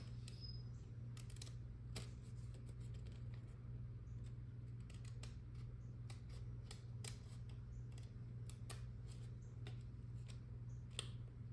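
A waterslide decal sheet being cut out by hand: a scatter of small, irregular snips and clicks over a steady low hum.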